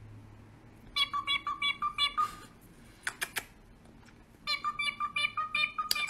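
Cockatiel chirping in two quick runs of short repeated notes, with a few sharp clicks between them.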